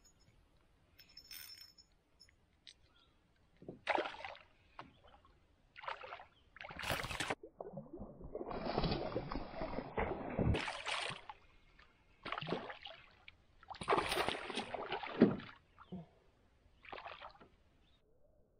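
Water splashing and sloshing at the side of a canoe in irregular bursts, a longer churning spell in the middle: a hooked bass thrashing at the surface.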